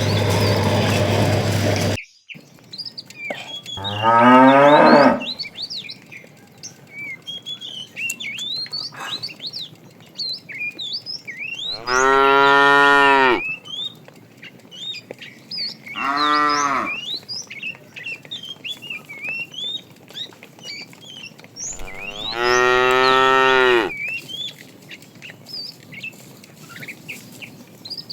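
Cows mooing, about five long separate moos a few seconds apart, from several animals in a herd. Small birds chirp faintly between the calls.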